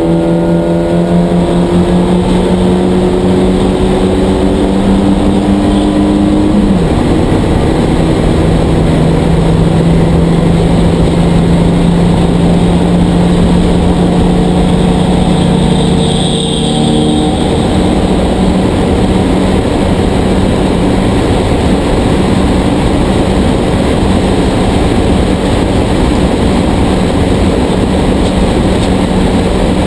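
Porsche 944 Spec race car's four-cylinder engine at full throttle, heard from inside the cockpit over wind and road noise. The pitch climbs, then drops sharply about seven seconds in as the driver shifts up. After that it holds at high revs, creeping slowly upward.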